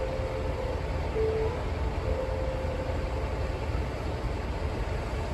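Steady low rumble of railway platform background noise, with faint thin tones that come and go.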